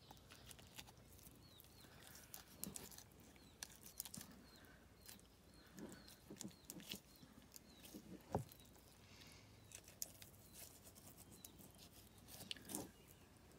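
Near silence with faint handling sounds: a small knife slicing raw chicken breast meat away from the breastbone, giving soft wet squelches and small clicks. The strongest come about two and a half, six and eight seconds in.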